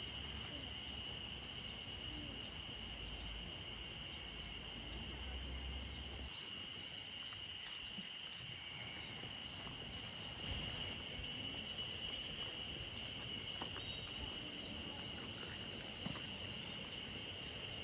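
A steady, high-pitched insect drone that holds one unbroken pitch, with a low rumble underneath that stops about six seconds in.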